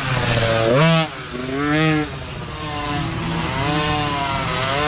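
Small 50cc two-stroke micro dirt bike engines revving up and down in quick surges, then settling into a steadier note that climbs slowly.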